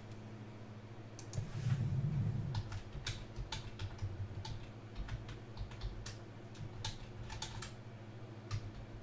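Irregular clicking of keys on a computer keyboard, a few clicks a second, over a faint steady low hum, with a low muffled bump about two seconds in.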